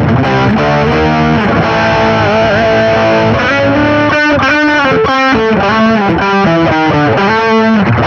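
Electric guitar played through a Marshall GV-2 Guv'nor Plus overdrive pedal, set with less mid and bass than the manual's sample setting. The first half has held notes with a vibrato bend; the second half has a quicker lick of picked and bent notes.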